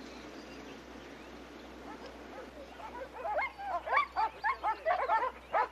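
Tracking dogs baying and barking in a rapid string of short calls. They are faint at first and grow louder from about halfway in.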